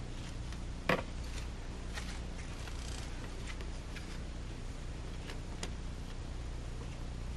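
Clamps being handled and fastened: one sharp click about a second in and a few lighter clicks, over a steady low hum.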